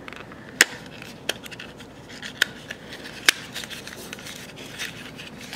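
Long fingernails scratching and picking at a small paperboard box as its end flap is worked open, with a few sharp clicks of the card, the loudest about half a second in.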